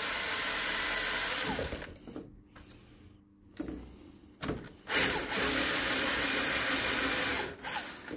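Electric drill boring a bolt hole through a snowboard binding part. It runs, stops about two seconds in, then runs again for about two and a half seconds before stopping near the end.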